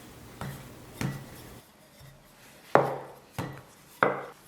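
Five sharp knocks of kitchen utensils on a wooden board as the dough is worked.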